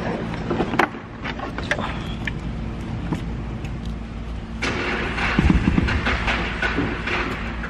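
Nissan 240SX S13's turbocharged SR20DET engine idling steadily, with scattered clicks and knocks of handling over it. A bit past halfway through it grows louder, with a rushing noise and a few low thumps.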